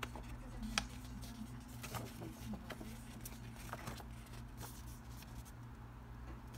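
Paper leaflets rustling as they are handled and leafed through, with scattered short ticks of paper flicking, over a steady low hum.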